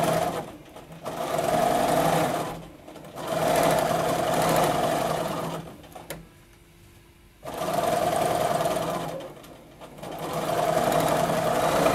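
Bernina sewing machine free-motion quilting through its stitch-regulator foot, stitching in runs of one to three seconds and stopping four times between the straight lines of a maze pattern. There is a single light click in the longest pause, about six seconds in.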